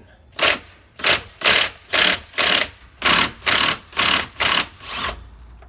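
Power impact wrench hammering in about ten short trigger bursts, roughly two a second, loosening the spring-loaded top cap bolt of a 1977 Kawasaki KZ400 front fork tube.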